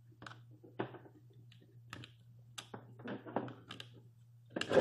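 Scattered light clicks and taps of a mini USB cable being handled and its plug pushed into the port of a Wacom Intuos S tablet, with a louder knock near the end.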